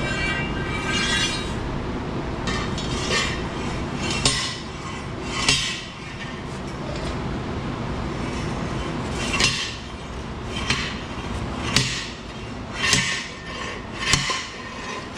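Hammer blows on steel, irregular sharp metal-on-metal strikes that ring briefly, coming about once a second in the second half, over a steady low rumble. The strikes are knocking a burnt-out bearing and its race out of a hay baler roller.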